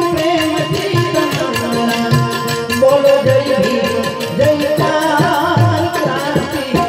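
Live Gujarati devotional folk music: a man singing to harmonium and tabla, amplified through a PA system. The tabla's low strokes repeat under a wavering sung melody and the harmonium's held notes.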